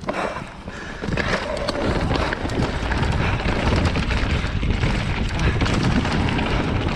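Commencal Meta Power 29 electric mountain bike riding rocky singletrack: tyres rumbling over dirt and stones with the bike rattling, plus wind noise on the helmet camera's microphone, louder from about a second in.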